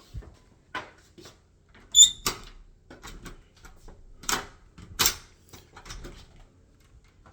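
Irregular knocks and clicks of someone moving about and handling a door. The loudest is a sharp click with a brief metallic ring about two seconds in, and there are heavier knocks about four and five seconds in.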